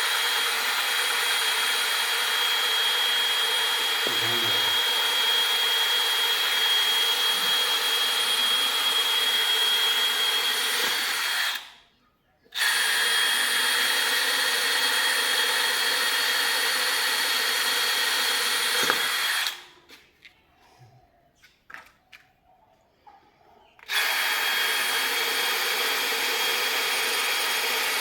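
An electric power tool running steadily with a high, even whine. It cuts out abruptly twice: once briefly about twelve seconds in, and once for about four seconds near twenty seconds in, starting again each time.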